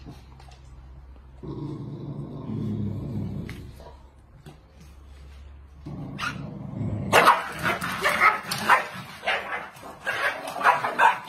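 Corgis barking and growling in play, a rapid string of loud barks about three a second starting about seven seconds in.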